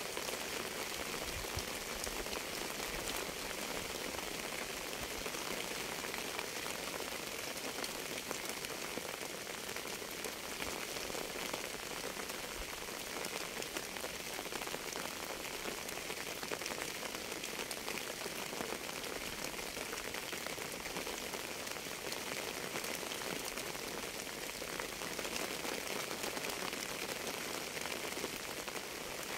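Steady rain falling, a dense, even patter of raindrops on a surface.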